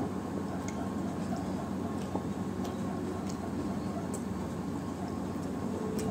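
Eating sounds from a person eating a roti and fish curry meal by hand: faint scattered clicks of chewing and handling food, about one a second, over a steady low hiss and hum.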